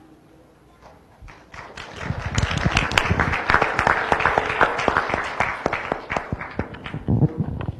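Audience applauding. The clapping swells about two seconds in, holds steady, then thins out and dies away near the end.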